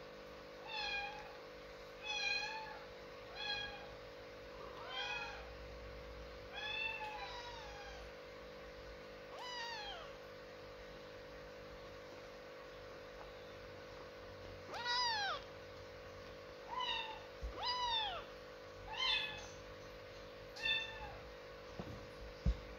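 Kitten meowing over and over in short, high-pitched, arching calls, about one every second or two, with a pause of a few seconds midway.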